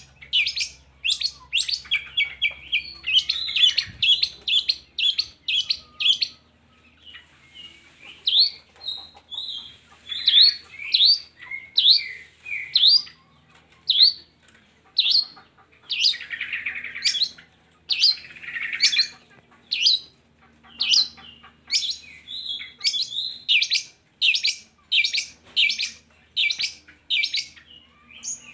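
Long-tailed shrike (cendet) singing a lure song: a long series of sharp, loud chirps about two a second, with a fast chattering run a few seconds in and two harsh, rasping notes a little past the middle.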